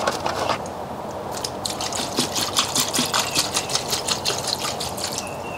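Evapo-Rust rust remover poured from a plastic jug over a rusty bicycle chain in a shallow plastic tub, running and splashing as the tub fills to soak the chain.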